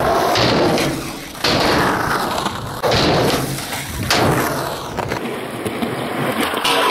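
Skateboard wheels rolling on concrete, broken by three sudden thuds of the board popping and landing, about a second and a half apart.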